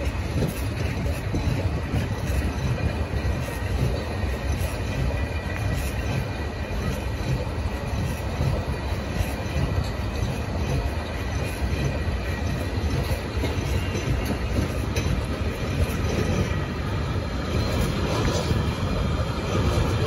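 Loaded freight wagons rolling past: a steady rumble of wheels on rail with an irregular clatter of wheels over rail joints and a faint high squeal from the wheels.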